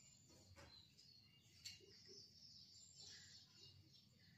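Near silence with faint, high bird chirps and two soft ticks in the first two seconds.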